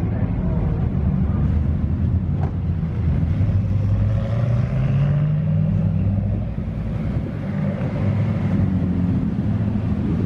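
A car engine running at low revs, its pitch rising a little about four to five seconds in and then easing back.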